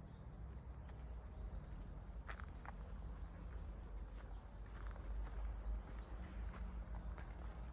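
Insects, crickets, singing a steady, high-pitched, continuous trill, with faint footsteps crunching on a dirt forest path underneath.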